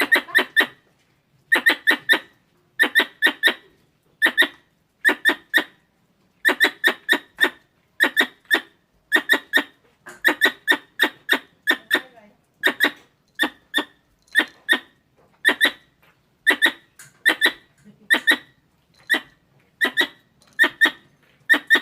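Squirrel chirping calls: short, sharp chirps in quick clusters of two to four, repeating about once a second, of the kind used to lure squirrels in.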